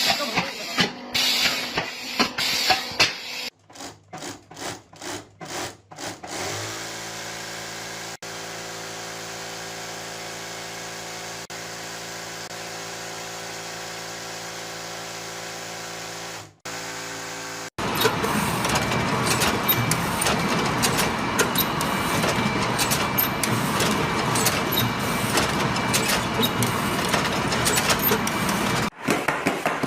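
Factory machinery heard in several separate runs. First comes a string of sharp knocks. Then a steady motor hum holds on one pitch for about ten seconds. Last, a dense clattering run full of small ticks breaks off suddenly near the end.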